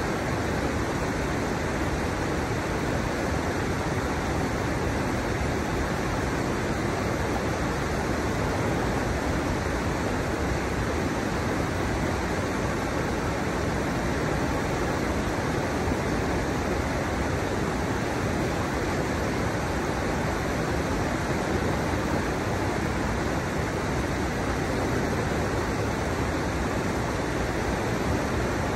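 River water rushing steadily over the stepped drops of a riverbed: a constant, even rush of flowing water.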